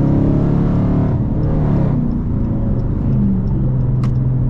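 Dodge Charger R/T's V8 engine running at highway speed; its note rises and falls a little early on and then settles into a steady drone. A short click sounds about four seconds in.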